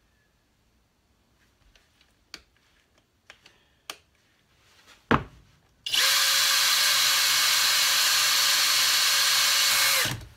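Cordless drill clamped in a vise, with a sisal buffing mop in its chuck, spinning up and running steadily at speed for about four seconds, then stopping abruptly. Before it starts there are a few handling clicks and a sharp knock.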